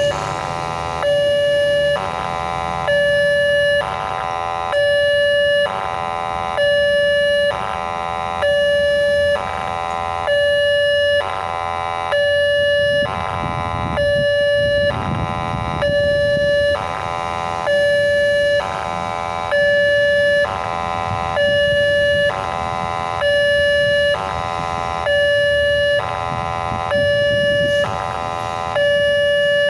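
Electronic warning siren of a railway level crossing, sounding in a hoarse two-tone alternation of about a second per tone, repeated evenly. It is the crossing's warning that a train is coming.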